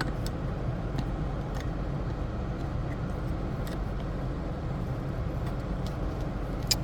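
Steady low background rumble with a few faint, light clicks scattered through it, from small parts being handled.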